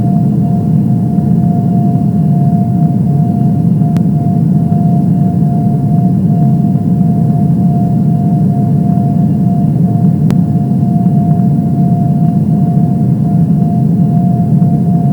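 Airliner cabin noise in flight: a loud, steady low rumble of engines and airflow with a steady whine. There are two faint clicks, about 4 and 10 seconds in.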